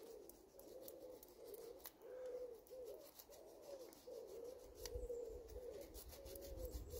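Faint, repeated cooing of a pigeon, phrase after phrase, with a few light clicks and a low rumble about five seconds in.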